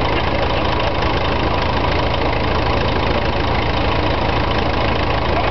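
An engine idling steadily, with an even, rapid low pulse.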